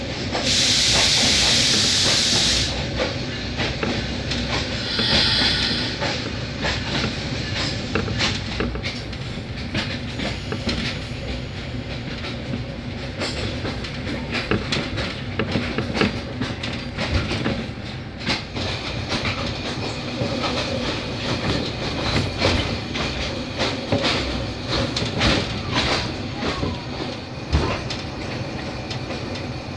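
Passenger train running over the track as it enters a station, wheels clattering over rail joints and points. There is a loud hiss about a second in and a shorter one around five seconds.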